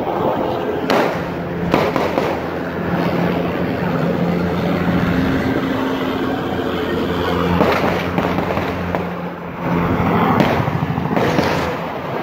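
Gunshots: several sharp cracks, a pair about one and two seconds in and more around ten and eleven seconds in, over a steady noisy din and a low steady hum.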